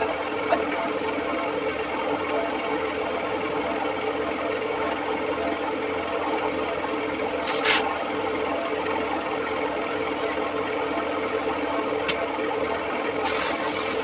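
A steady machine hum, like an engine running at idle, runs without change throughout. A short hiss comes about halfway through, and more bursts of hiss near the end.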